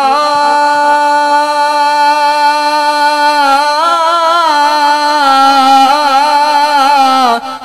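A man's solo voice singing Punjabi Sufi kalam, holding one long, high note with wavering ornaments in the middle; the note falls away just before the end.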